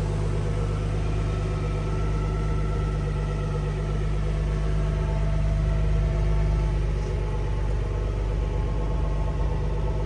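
Car engine idling steadily at an even pitch.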